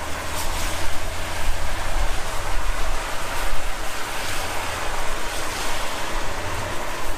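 Steady rushing noise from a car driving at speed on a wet road: wind buffeting the microphone over tyre hiss on wet tarmac, with a low rumble underneath.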